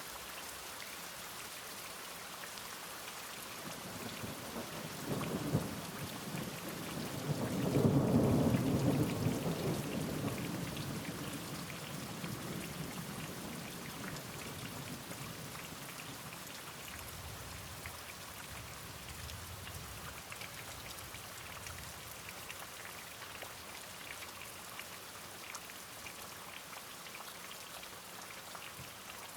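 Steady rain falling, with a roll of thunder: a sharp crack about five seconds in, building into a rumble that peaks around eight seconds and slowly dies away. A fainter rumble follows a few seconds later.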